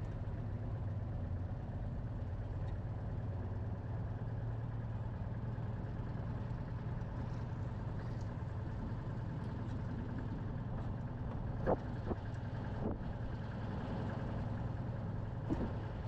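Citroën car engine running with a steady low hum while the car drives slowly along a street. A few brief knocks come in the second half.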